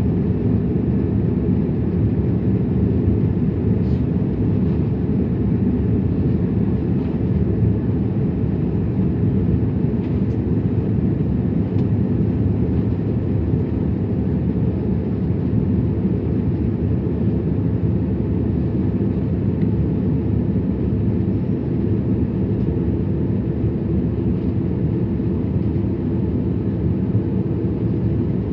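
Steady low rumble of an Airbus A330 in flight, heard inside the cabin: engine and airflow noise holding an even level, with a few faint ticks.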